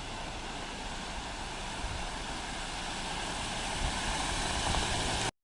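Steady rushing noise of fast-flowing floodwater, with wind buffeting the microphone as a low uneven rumble. It cuts off suddenly near the end.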